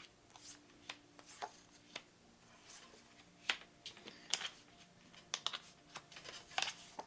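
Tarot cards being handled: soft flicks, slides and light taps of the cards, scattered irregularly, over a faint room hum.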